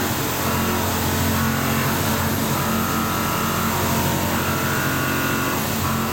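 CNC milling machine cutting SKD61 hot-work tool steel with a POKOLM milling cutter. The spindle runs with a steady hum, and a higher cutting whine comes and goes every second or so as the tool moves through the steel.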